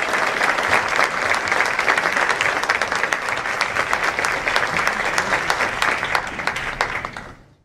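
Audience applauding, a dense clatter of many hands clapping that fades out quickly near the end.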